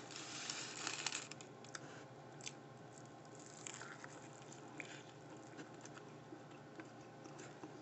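Faint crunching and chewing of a deep-fried, battered sushi roll, with scattered small clicks of eating. A louder rustle comes in the first second.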